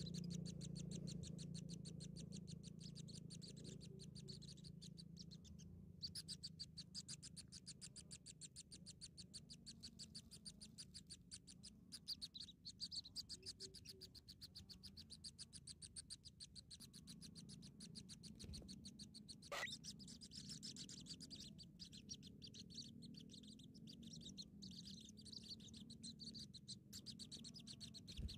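Faint, fast, high-pitched chirping of naked nestling birds, a steady stream of short peeps typical of chicks begging for food, over a low hum that fades in the first few seconds.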